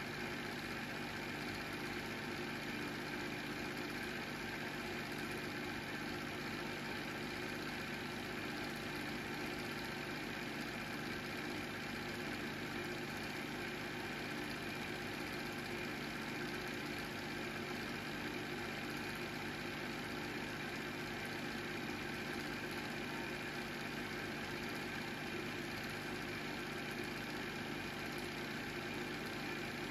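Home-movie film projector running: a steady mechanical hum that does not change.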